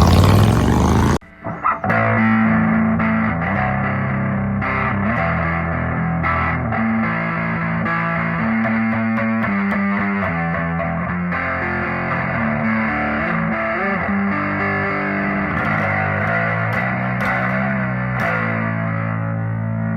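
Background music: a rock track with distorted electric guitar, opening with a loud burst about a second long.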